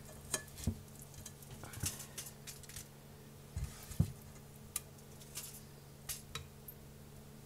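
A utensil scraping and tapping in a bowl as scrambled eggs are spooned onto a tortilla: scattered light clicks and taps, with a soft thump about four seconds in. A faint steady hum runs underneath.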